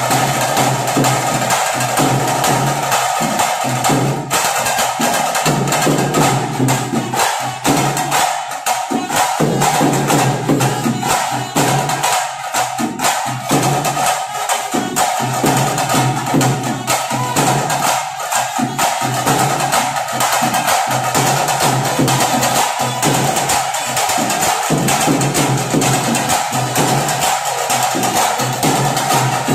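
Loud live drumming with sharp clacking beats in a fast, steady rhythm.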